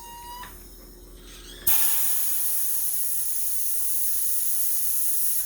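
Compressed gas hissing steadily from the Ayrtekk booster pump setup. The hiss starts sharply about a second and a half in, after a faint whine, and cuts off abruptly at the end.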